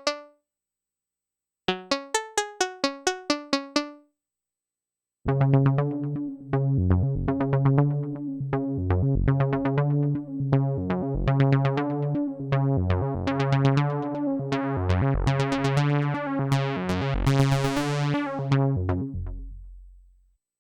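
Dave Smith Evolver synthesizer playing sequenced patches. First comes a quick run of short plucky notes, then after a gap a busier pattern with a heavy bass line and percussive hits. A bright noise swell builds near the end before it all fades out.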